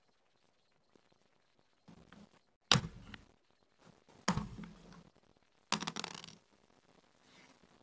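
Backgammon checkers knocked down onto a wooden board: three sharp clacks roughly a second and a half apart, the last one a brief rattle of several clicks.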